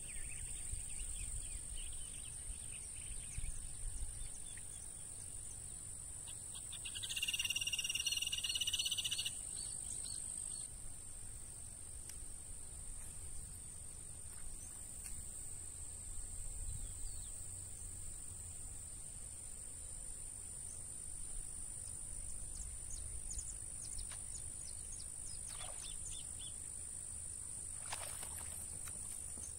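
Steady, high-pitched insect trill from crickets or cicadas in the grass, with low wind rumble. About seven seconds in, a bird calls for roughly two seconds; this is the loudest sound.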